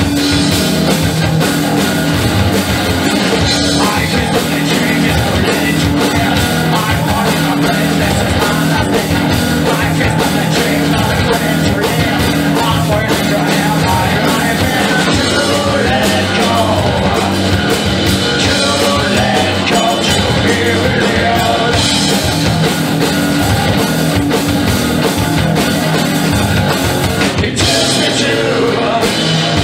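Live rock band playing a song, with a drum kit and cymbals in the mix.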